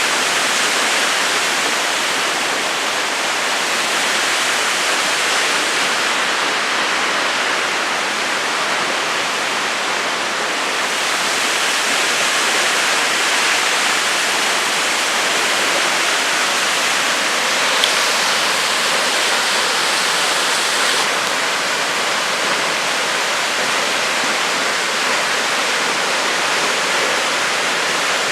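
Waterfall, close by, pouring into its pool: a steady, loud rushing of falling water that does not let up.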